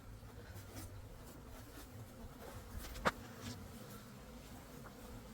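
Honeybees buzzing faintly around the hive, with one sharp click about three seconds in.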